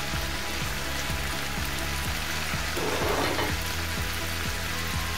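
Cabbage, zucchini and other vegetables sizzling as they sauté in a nonstick frying pan, under background music with a steady beat.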